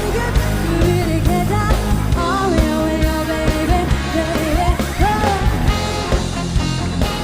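Live pop band playing: drums and bass under a melody line that slides between held notes.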